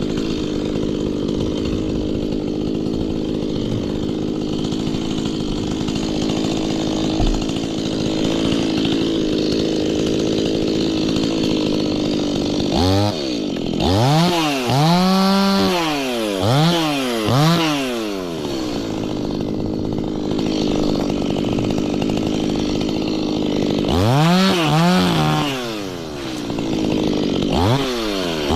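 Two-stroke Stihl chainsaw idling steadily, then revved up and back down several times in quick succession about halfway through, idling again, and revved twice more near the end.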